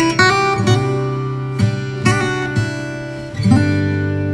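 Background music of plucked string notes, with new notes about every half second and a change of chord about three and a half seconds in.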